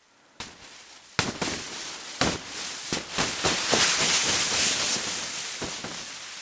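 Food hitting a very hot cast-iron pot: a click, then about a second in a loud hiss of sizzling with many sharp spattering pops, loudest around the middle and easing a little toward the end.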